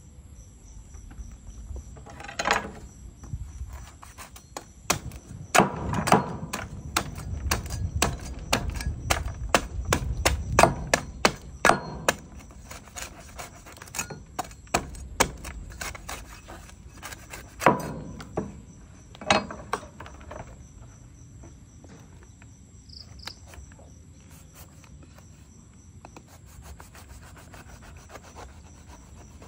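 Cleaver chopping into a durian's spiky husk on wooden floorboards: a run of sharp knocks, thickest between about five and twelve seconds in, with a few hard single strikes. The knocks thin to faint scattered taps after about twenty seconds.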